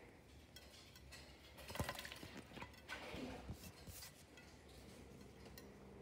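Quaker parrot bathing in a shallow glass bowl of water: faint, scattered splashes and small clinks against the glass. The loudest come about two seconds in, with more around three to four seconds.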